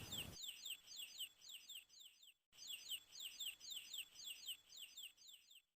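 Baby chick peeping: a quick series of short, high, falling peeps, about four a second, with a brief pause partway through.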